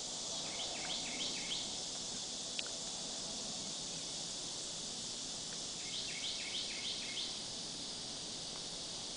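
Outdoor ambience: a steady high insect hiss, with two runs of about five quick rising bird chirps, one near the start and one about six to seven seconds in.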